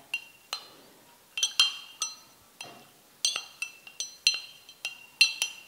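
A small spoon stirring in a cup, clinking against its side about a dozen times at an uneven pace, each clink ringing briefly: honey being stirred to dissolve in warm water.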